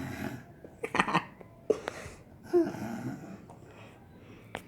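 Short bursts of a person's throat noises: a loud one about a second in and a shorter pitched one around two and a half seconds in, with a sharp click near the end.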